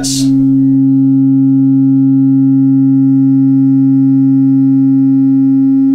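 Subwoofer in the 3D-printed Omyramid enclosure playing a steady sine test tone of about 270 Hz at high level (around 129 dB on the meter), for a loudness measurement. A fainter tone sits about an octave below, with weaker overtones above; the tone starts suddenly and cuts off just before the end.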